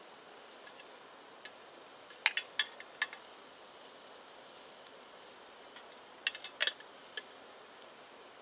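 Metal lid of a stainless camping kettle clinking against its rim as it is lifted off, a few sharp clinks about two seconds in, then again as it is set back on a little after six seconds. Underneath runs a steady high hiss from the gas canister stove burner heating the kettle.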